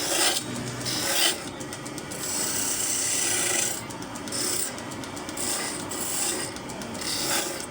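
A hand-held abrasive tool worked back and forth across wood, making a rough rasping sound in several long strokes of about a second each.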